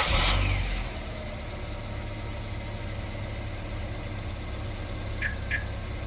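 Samsung SM3's engine just after a remote start: it flares loudly for about the first second, then settles into a steady idle. Two short high beeps come about five seconds in.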